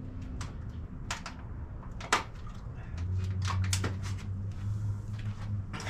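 Scattered light clicks and knocks from someone handling things at a workshop shelf, over a low steady hum that gets stronger about three seconds in.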